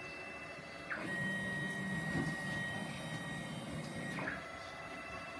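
Stepper motors of a home-built CNC router giving a steady high whine, then from about a second in driving the router carriage along the gantry for about three seconds with a louder, lower-pitched whine and a rumble, before settling back to the steady whine.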